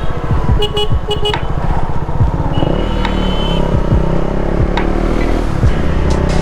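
Motorcycle engine running as it rides along, with three short horn toots about a second in and a longer horn note around three seconds in.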